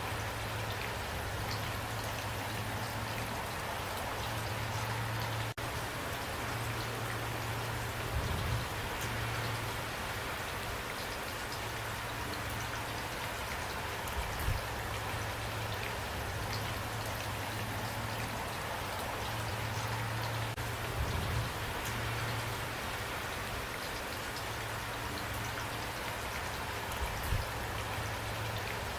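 Steady rain falling, a dense even patter of drops, over a low steady rumble, with a few soft low thumps spaced several seconds apart.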